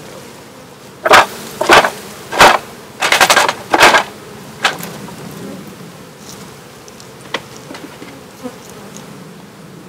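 Honeybees buzzing around an open hive, broken by a cluster of loud scrapes and knocks between about one and four seconds in as a wooden hive box is lifted off the box below.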